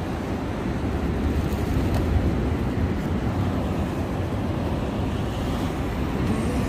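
Wind buffeting the microphone over waves washing against the shoreline rocks: a steady low rush with no distinct events.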